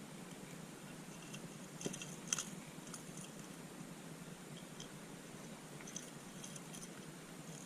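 Faint scattered clicks and taps from handling the fish and lure, over a low steady hum.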